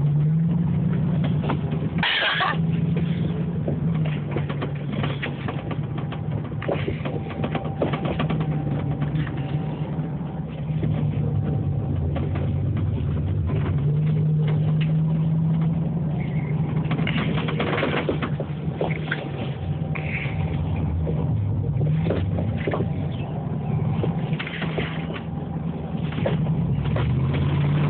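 Dodge Dakota pickup's engine running, its revs rising and falling as the truck does donuts in snow, with scattered short knocks.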